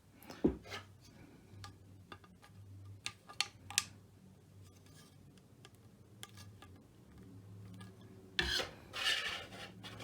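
Handling noise from a plastic figure being moved in the hands: a thump about half a second in, a few sharp clicks and taps, and a louder rubbing scrape near the end, over a faint steady low hum.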